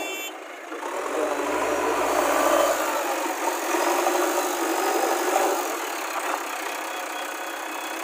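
JCB 3DX Plus backhoe loader's diesel engine running as the machine drives past close by on a dirt track, loudest in the first half and then settling to a steady run.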